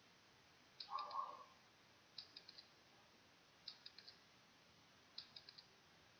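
Quiz-video sound effects: a short pitched blip about a second in as the last answer option pops up, then a countdown timer ticking in quick clusters of four high clicks, three clusters about a second and a half apart.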